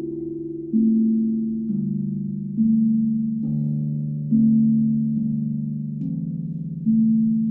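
Moyo drums struck in a slow, even pulse, about one note a second, each a low ringing tone that fades slowly and overlaps the next.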